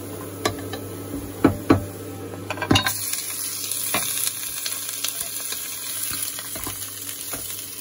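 Chopped garlic sizzling in hot oil in a pot, stirred with a wooden spatula that knocks against the pot a few times. About three seconds in, sliced beef goes into the pot and the sizzling grows louder as it is stirred and fried.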